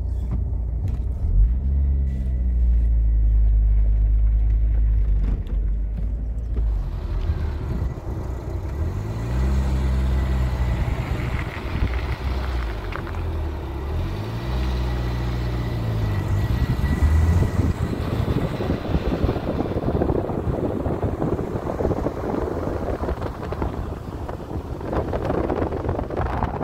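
A motor vehicle's engine running while driving, its pitch rising and falling a few times, then giving way to steady road and wind noise in the second half.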